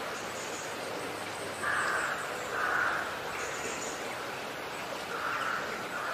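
Steady background hiss, with three short louder sounds about two, three and five and a half seconds in.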